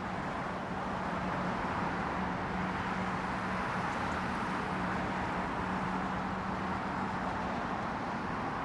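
Steady airport background noise: an even rumble of distant jet engines and traffic with a low, constant hum, neither rising nor falling.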